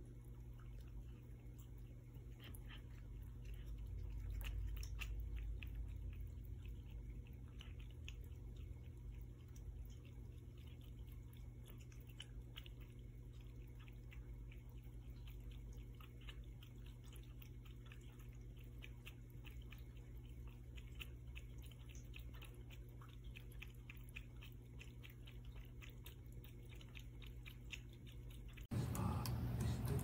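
A cat lapping water from a pet drinking fountain: many small, quick clicks over a faint steady low hum. Near the end it cuts to a louder stretch of water pouring from a fountain spout into its bowl.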